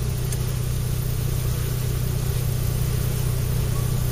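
A vehicle engine idling with a steady low hum, over the even rush of wind and choppy bay water.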